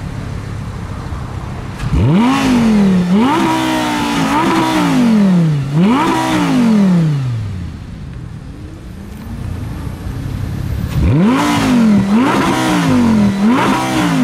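Audi R8's 5.2-litre V10 engine revved while stationary: it idles, then is blipped up and down four times in quick succession, settles back to idle, and is blipped again in a second run of quick revs near the end.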